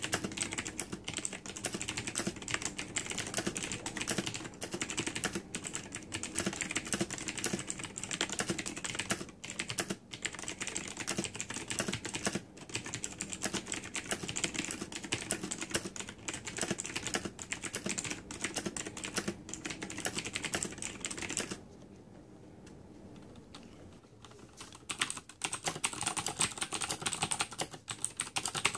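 Fast, continuous typing on a Razer BlackWidow Ultimate mechanical keyboard with clicky switches (Kailh Green or Cherry MX Blue). The typing breaks off for about three seconds a little after two-thirds of the way through, then starts again.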